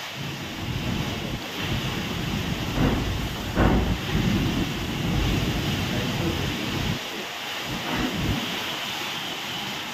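Heavy rain and gusting wind, with the wind buffeting the microphone; a couple of stronger gusts come about three to four seconds in.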